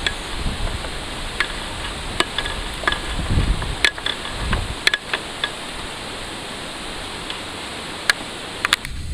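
Steady rushing of a river, with scattered sharp clicks and knocks now and then.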